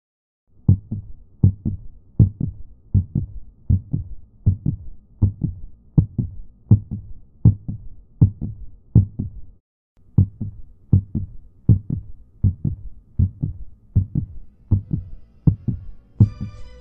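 A heartbeat at about eighty beats a minute, each beat a deep thump followed by a softer one. It breaks off briefly near the middle and picks up again, and sustained musical tones come in near the end.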